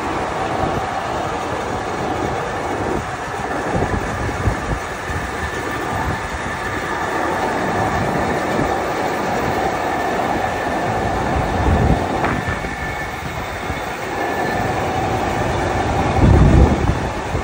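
Heavy machinery on an iron-ore loading wharf, ore conveyor and rail-mounted shiploader, running with a steady rattling rumble and a faint whine, like a passing train. A louder low rumble swells near the end.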